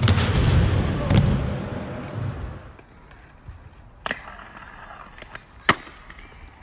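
Inline skate wheels rolling loud and rumbling over wooden ramps, with a couple of knocks, fading out after about two and a half seconds. Then two sharp clacks of skates striking concrete, about four seconds in and, louder, near six seconds, as the skater hits a ledge and lands.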